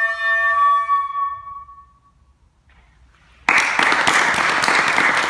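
Flute holding the final note of the piece, which fades away over about two seconds. After a short pause, audience applause breaks out sharply about three and a half seconds in.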